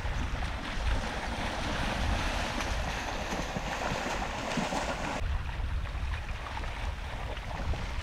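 Water splashing and sloshing as a brown bear wades through a shallow creek, over a low rumble of wind on the microphone. The splashing cuts off suddenly about five seconds in, leaving the wind rumble and the creek's wash.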